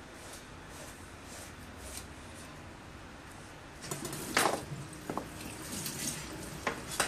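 Pot of cassava boiling on a stove, a steady faint bubbling hiss; from about four seconds in, several sharp clinks and knocks of pots and utensils, the loudest near the middle.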